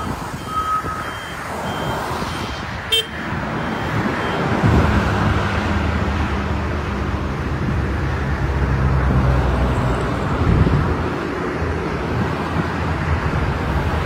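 Caterpillar 950K wheel loader's diesel engine running, picking up revs about four and a half seconds in and then holding a steady, stronger note. A short run of high beeps comes in the first two seconds, and a single sharp click about three seconds in.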